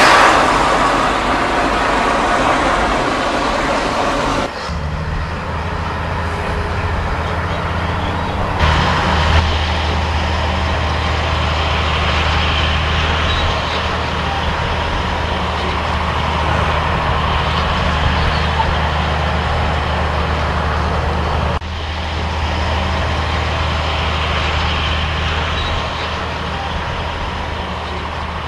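Motor vehicle engine and road noise: a steady low engine hum under a broad rushing sound, which shifts abruptly a few times, at about four and a half, nine and twenty-one seconds in.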